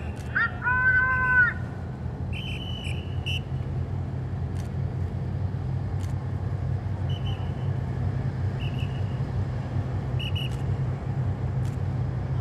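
Low, steady hum of ship engines as the destroyer leaves the quay with a tug alongside. A high pitched call sounds near the start, and short high chirps come several times over it.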